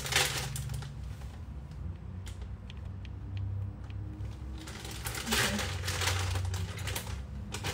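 Light clicks and rustling of ingredients being handled and added by hand to a blender jar, over a steady low hum.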